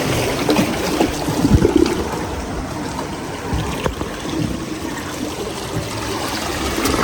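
Seawater sloshing and trickling close to the microphone, with a few low knocks.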